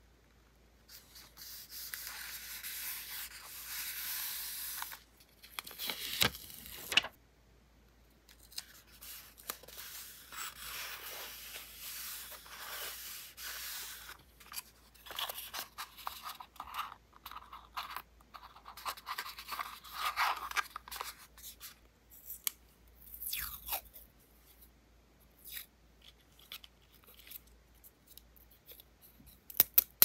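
Paper and sticker sheets handled for journal decorating: spells of rustling and rubbing lasting a few seconds, broken by sharp clicks and taps. After about twenty seconds the rustling gives way to scattered clicks, the loudest near the end.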